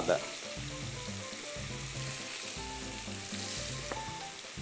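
Pieces of leather fish frying in a hot pan of buriti oil and clarified butter, a steady sizzle, with one light utensil tap about four seconds in.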